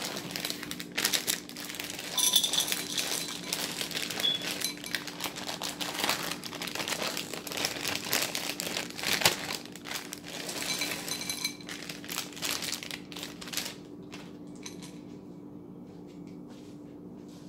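Plastic bag of pink candy melts crinkling as the wafers are poured into a glass bowl, with many small clicks of wafers landing on the glass. It dies away near the end, leaving a faint steady hum.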